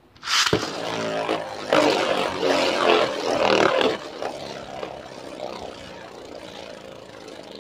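A Beyblade Burst top ripped from a string launcher with a sudden whir, then spinning and clattering against the plastic stadium. It is loudest for the first few seconds and settles to a steadier, quieter spinning whir.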